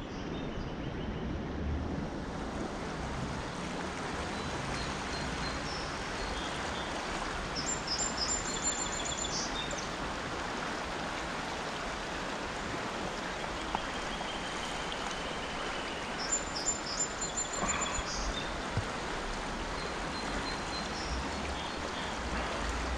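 Creek water rushing steadily. A songbird sings a short, high, repeated phrase twice, about a third of the way through and again past the middle.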